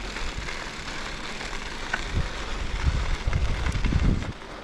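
Riding noise from a bicycle on a gravel trail: steady rolling hiss, with wind buffeting the microphone in uneven low gusts from about halfway through.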